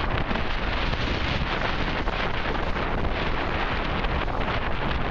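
Strong wind buffeting the microphone aboard a heeled sailing yacht under way in a fresh breeze, as a steady loud rush, mixed with water rushing and splashing along the bow as it drives through choppy sea.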